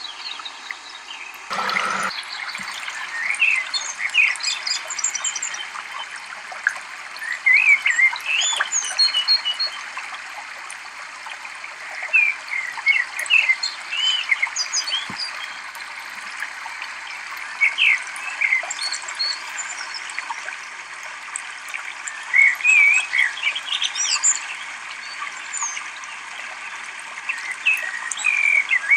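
Many small birds chirping and calling over a steady hiss of running water. A brief rustling burst about two seconds in.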